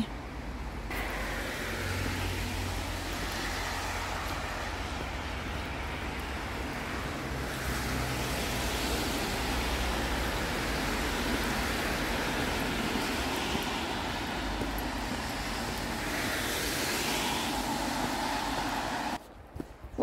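Steady rushing background noise with no distinct events, shifting slightly in tone about 7 and 16 seconds in.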